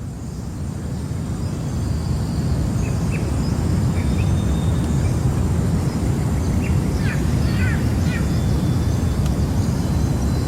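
Jungle ambience: a steady low rumble with scattered bird chirps and whistles over it, including a quick run of falling calls about two thirds of the way through. It fades in over the first two seconds.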